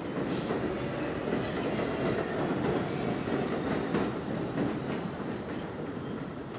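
R62A subway train running along elevated track, with a steady rumble of steel wheels and a few sharp clacks over rail joints, fading as it moves away. There is a brief high hiss about half a second in.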